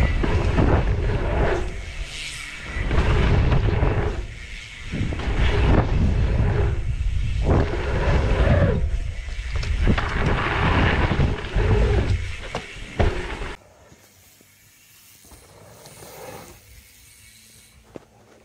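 Wind rushing and buffeting over an action camera's microphone while riding a mountain bike at speed, swelling and dipping several times. It cuts off abruptly about three-quarters of the way through, leaving a much quieter background.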